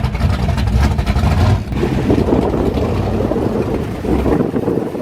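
Car engine running with a loud, low exhaust rumble that changes in tone about a second and a half in and eases near the end.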